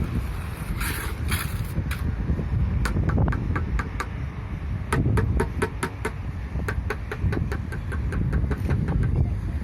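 A long run of sharp light taps, a few a second and somewhat irregular, as of a hand tool knocking on fresh concrete or masonry, over steady wind rumble on the microphone.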